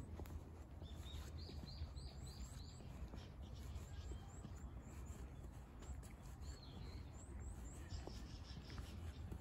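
Small birds chirping: many short, high chirps throughout, with a quick run of about five notes near two seconds in, over a steady low outdoor rumble.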